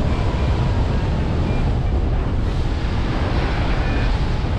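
Wind rushing and buffeting over the microphone of a hang glider in flight, a steady loud roar of airflow, with a few faint short high beeps.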